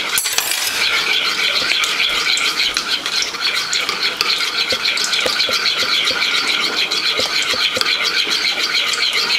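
Metal spoon stirring a thick mayonnaise-and-ketchup sauce in a ceramic bowl, scraping and tapping rapidly and without a break against the bowl's sides.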